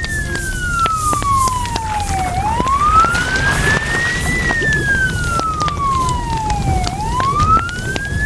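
Emergency vehicle siren on a slow wail, each cycle rising over about two seconds and falling over about two and a half, heard about twice through. Under it run a steady rumble and scattered clicks.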